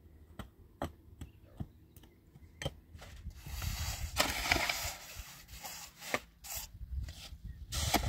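Sharp taps and knocks of a trowel working wet cement against stones, then, about three and a half seconds in, the gritty scrape of a shovel pushing through a heap of sand and cement mortar, with more knocks in between.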